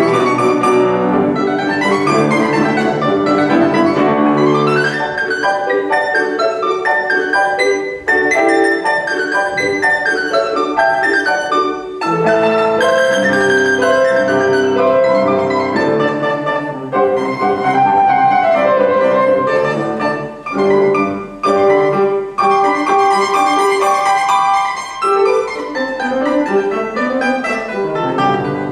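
Piano and a small plucked string instrument of the mandolin family playing a lively kolo together in quick runs of notes, with brief breaks in the phrasing.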